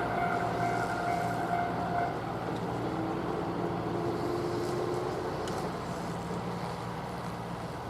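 Electric train moving away along the line: a steady whine stops about two seconds in, and a lower whine follows from about three to five seconds, over a steady low hum that slowly fades.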